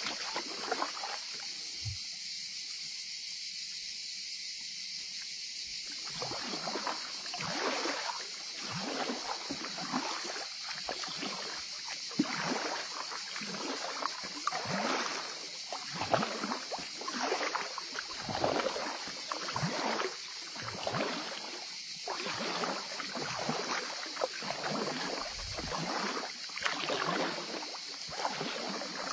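Water splashing and lapping around an inflatable kayak moving down a shallow, pebble-bottomed river, in short irregular splashes one or two a second over a steady high hiss. For a few seconds near the start only the hiss is heard.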